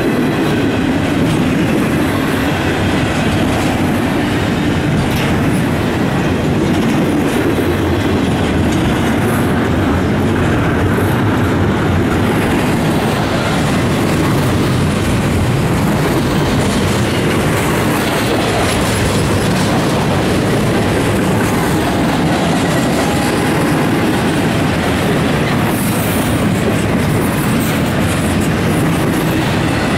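Double-stack intermodal freight train's well cars rolling past close by: a steady, loud rumble with continuous clatter of wheels over the rails.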